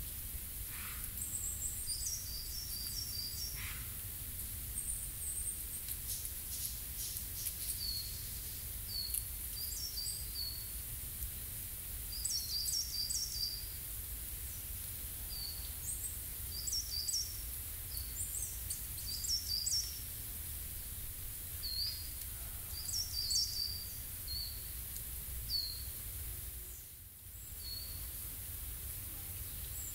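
Small songbirds calling again and again: short, high chirps that fall in pitch, in quick clusters of three or four every second or two. Under them runs a steady low rumble.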